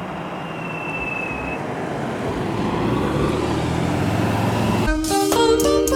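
A steady rushing noise, with a faint high tone in the first second or so, slowly growing louder. Near the end it is cut off by music with a beat that comes in abruptly.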